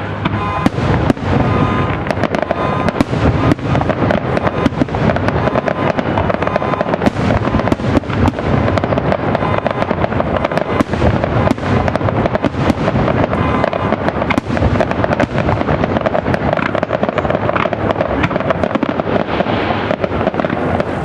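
Aerial firework shells bursting in a dense barrage: a continuous stream of rapid, overlapping bangs and crackles with no let-up.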